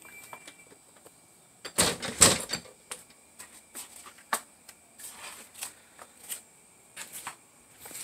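Scattered clicks and knocks of a phone being handled and moved, with two louder thumps about two seconds in, over a faint, steady, high-pitched insect drone.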